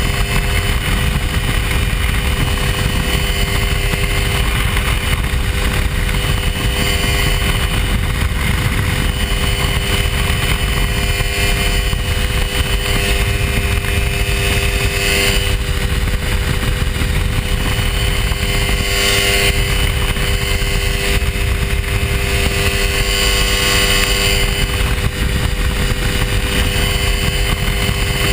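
Hy-Tek Hurricane ultralight airplane's engine running steadily in flight, with a constant rushing noise under it.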